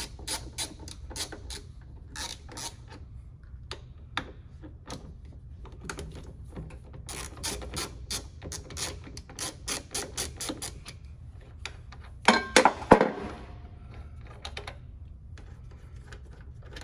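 Hand ratchet clicking in quick runs of about four clicks a second as it loosens a battery terminal nut. About twelve seconds in there is a brief burst of louder metallic knocks and clatter.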